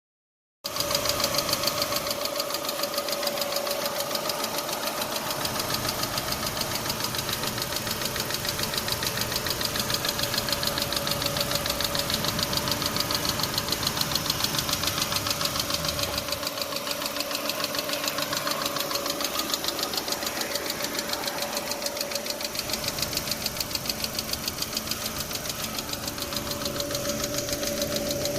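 2006 Chevy Aveo's 1.6-litre four-cylinder engine running with a rapid, even ticking: the ticking noise that is this car's fault.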